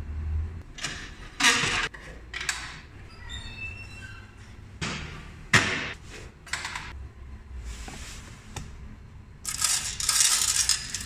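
Ruble coins clinking and clattering as they are scooped by hand from the plastic coin trays of mechanical vending machines, in several separate bursts, with a denser run of clinking near the end.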